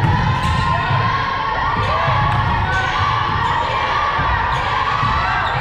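Sounds of a basketball game in play: the ball bouncing on the court under a busy layer of players and spectators shouting.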